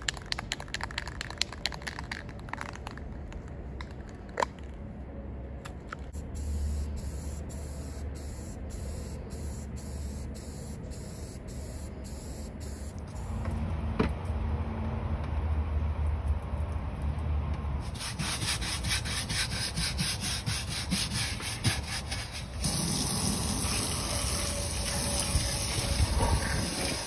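Water spraying onto a golf cart's rubber floor mat as it is washed, a steady hiss that gets louder in the last few seconds. The first half is quieter, with scattered small ticks and knocks.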